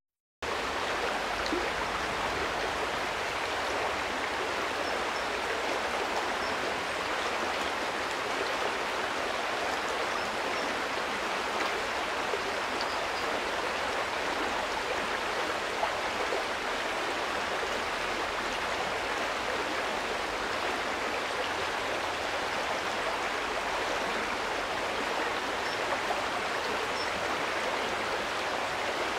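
River water flowing, a steady rush of running water that starts a moment in.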